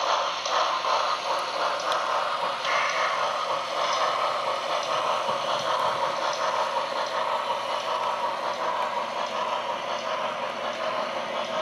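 HO scale model locomotive running steadily along the layout's track: a continuous mechanical whirring and rolling of the motor, gears and wheels on the rails.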